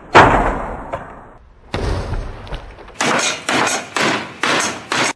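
A series of loud impacts: two heavy bangs with long ringing tails, then about five quick hits about half a second apart, cutting off suddenly.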